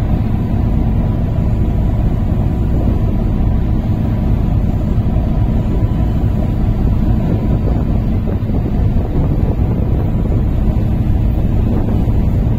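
Steady low rumble of a ferry under way, its engines and wake heard from the open deck, with wind on the microphone.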